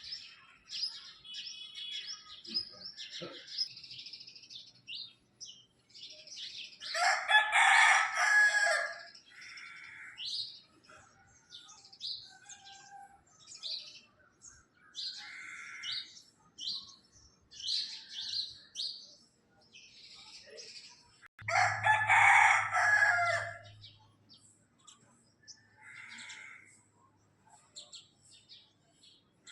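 A rooster crowing twice, each crow about two seconds long, about seven seconds in and again about twenty-one seconds in, over many short chirps of small birds.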